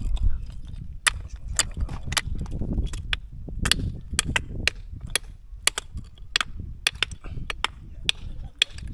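Sharp, irregular knocks of a small hammer striking spider conch shells, about two a second, as the shells are broken into to get the meat out.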